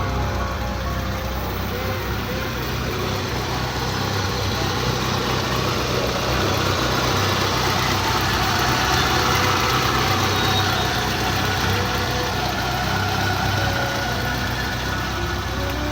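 Suzuki Jimny's 1000cc engine idling steadily; it sounds smooth, a sign of a healthy engine.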